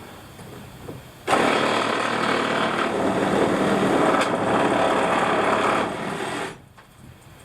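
Power saw cutting through old wooden floorboards, starting abruptly a little over a second in, running steadily for about five seconds, then stopping.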